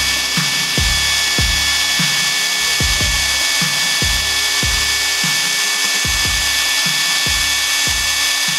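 NRT TX-30DC brushless cordless impact wrench running free at its highest speed setting with no load, a steady high-pitched whine, spinning at about 2,060 rpm.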